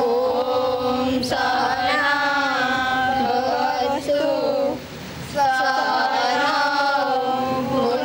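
A group of girls singing a prayer together in unison, in long held notes, with a short pause between phrases about five seconds in.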